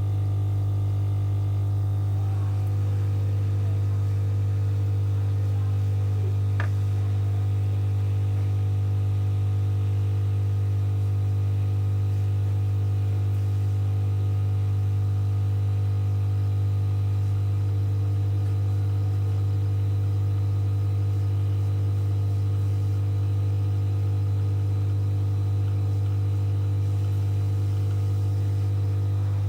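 Steady low electrical mains hum at constant loudness, with a faint click about six seconds in.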